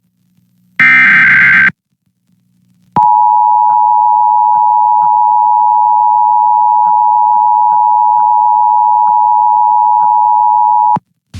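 Emergency Alert System test: the last SAME digital header burst, a harsh warbling data screech about a second long, then after a short pause the EAS two-tone attention signal (853 and 960 Hz sounded together). The tone is a steady, piercing tone held about eight seconds before it cuts off suddenly.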